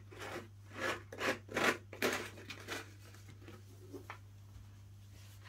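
Handling noises: a quick run of short scraping, rubbing strokes over the first three seconds, then a faint click, over a steady low hum.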